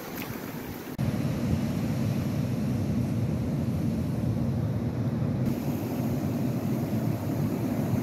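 Surf breaking on a beach under steady wind rumbling on the microphone; the sound steps up louder about a second in.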